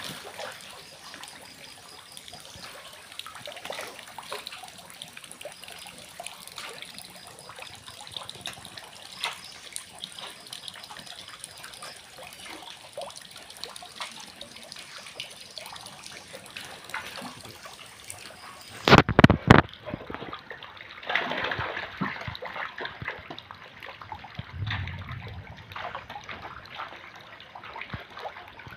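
Water pouring from a pipe into a concrete catfish tank, with steady splashing and trickling at the surface. About nineteen seconds in there is a brief cluster of loud knocks, followed by a few seconds of louder splashing.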